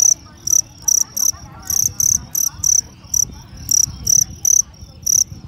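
Male fighting crickets chirping loudly and repeatedly: short, sharp chirps, about two to three a second in uneven runs, the rivalry song of crickets squaring off in a fight.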